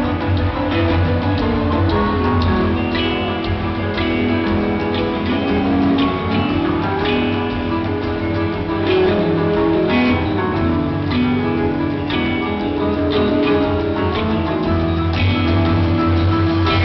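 Live rock band playing, with electric guitars, bass guitar and drums, heard from high in the audience through a camera microphone.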